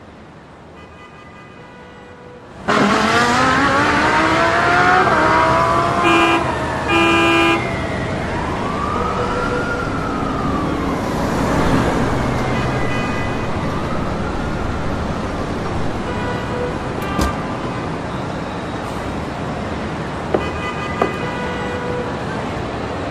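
Car chase sound effects: a car engine revs up hard about three seconds in, two short horn blasts follow, then a siren wails slowly up and down over steady engine and road noise.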